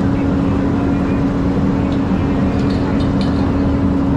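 An engine running steadily at constant speed: a loud, even drone with a steady hum that never changes pitch.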